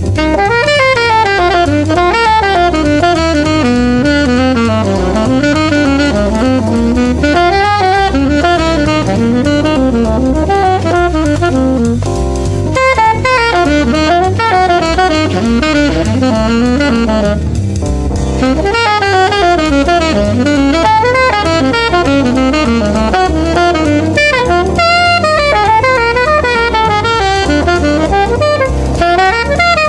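Saxophone playing a fast improvised jazz solo line over a backing track with bass and drums. The solo is built from quick runs that wind up and down, with a brief breath pause about twelve seconds in.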